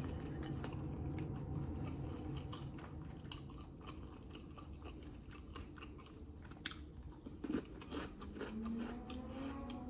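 Close-up chewing and biting of food, with small crunches and wet mouth clicks scattered through, and a brief low hum near the end.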